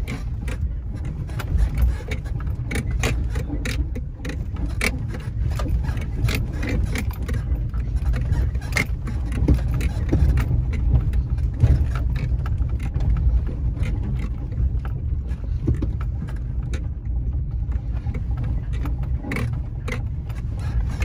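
Vehicle driving over a rough, rocky dirt road, heard from inside the cab: a steady low engine and tyre rumble with frequent irregular knocks and rattles as the tyres hit rocks and the body jolts.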